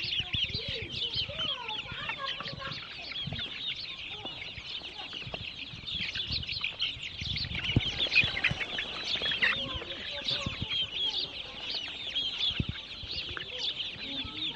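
A large flock of chickens in a poultry farm calling all at once: a constant chorus of many short, high-pitched peeps, with occasional lower clucks and a few light knocks.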